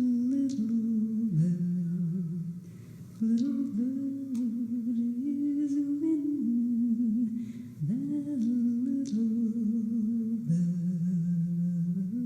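A voice humming a slow, wordless melody in long held notes that slide from one pitch to the next, with no clear instrumental backing.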